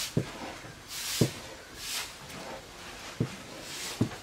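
A long wooden stick stirring and beating thick maize-flour dhido in a metal wok. It makes rhythmic scraping swishes about once a second, with four short, dull thumps as the stick strikes the stiff dough and pan.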